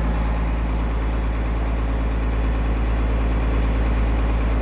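Boat engine running steadily with a deep, even hum.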